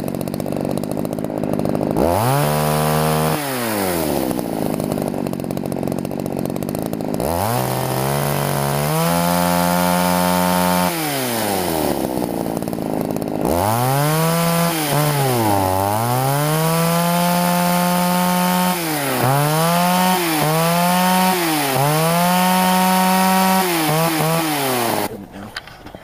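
Poulan two-stroke chainsaw engine revved repeatedly from idle to high speed and back, held at full throttle for a few seconds at a time, then given several quick throttle blips. It cuts off suddenly about a second before the end as the saw is shut down. The owner says this saw already runs well before any carburettor adjustment.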